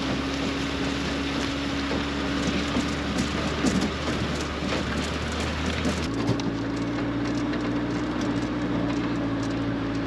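Farm ute driving slowly: a steady engine drone under a rushing noise of tyres and wind, with scattered knocks and rattles from the ride. The engine note changes abruptly about six seconds in.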